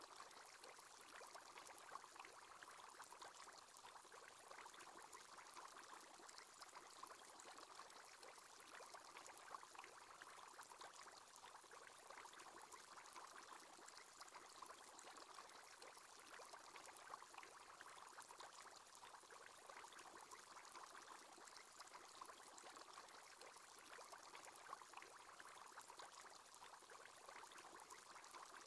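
Faint, steady bubbling of an aquarium aerator, a soft watery hiss full of tiny pops.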